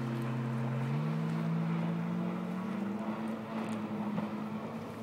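A jet ski's engine runs at speed out on the water as a steady drone. Its pitch climbs between about one and three seconds in, then holds.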